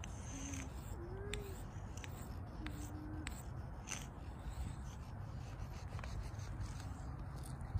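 Sidewalk chalk scratching and rubbing on asphalt, with scattered light clicks as the chalk strokes, over a steady low rumble.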